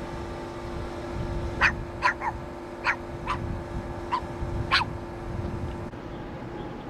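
A dog barking in short, sharp barks, about seven times, over a steady low hum.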